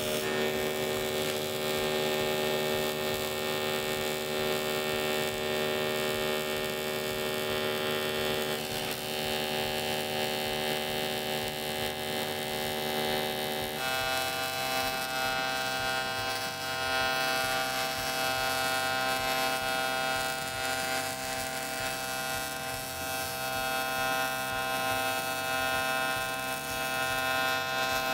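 AC TIG welding arc on cast aluminum from a Miller Dynasty 350, a steady buzzing hum set by the 76 Hz AC frequency used for welding the head deck. About halfway through, the buzz steps up to a higher pitch, which fits the higher frequency of around 120 to 130 Hz that gives the tighter arc used in the valve seat area.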